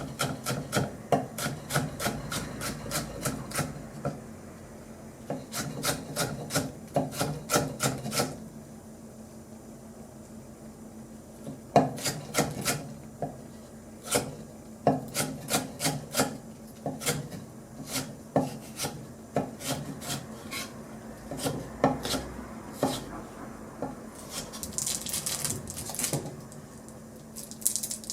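Kitchen food prep: repeated rasping strokes of a blade cutting or grating food on a wooden board. They come in quick runs of about five a second at first, then as slower single strokes, over a steady low hum.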